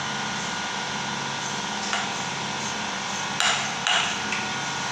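Hammer blows on a buggy differential being taken apart for repair: a light tap about two seconds in, then two sharp strikes about half a second apart, over a steady background hiss.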